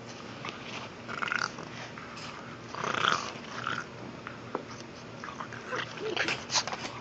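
A pug making short play noises in irregular bursts while playing with a ball, the loudest about three seconds in, with quick clicks near the end.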